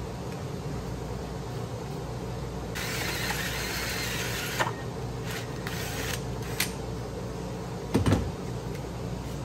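Cordless drill running a hole saw into a small plastic speaker-pod panel for about two seconds, then a few sharp clicks and a louder knock near the end, over a steady background hum.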